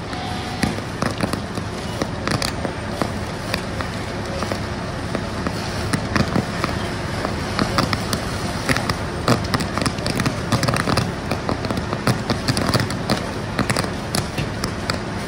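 Fully involved wood-frame house fire crackling, with irregular sharp cracks and pops several times a second over a steady rushing noise; a downed power line arcing and sparking on the lawn adds to the popping.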